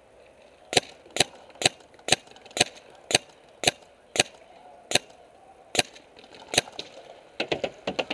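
Paintball marker firing a string of single shots, about two a second, spacing out a little, then a quick rapid string of shots near the end.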